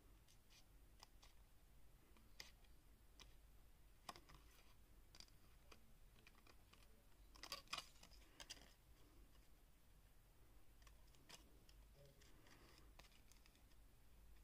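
Faint snips and clicks of small scissors cutting a narrow strip of cardstock, with a short run of louder snips about halfway through.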